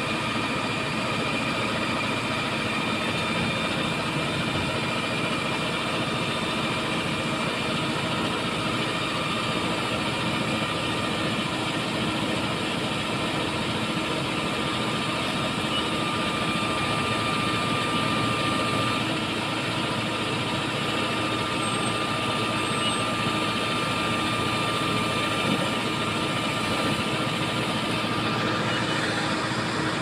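Lovol backhoe loader's diesel engine running steadily under hydraulic load as the boom and stabiliser legs lever the machine down off a dump truck, with steady high tones over the engine noise.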